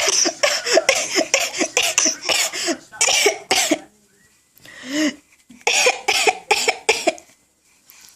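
A person making mock sneezes: rapid runs of short, cough-like bursts, broken by a pause of about a second about four seconds in, then resuming.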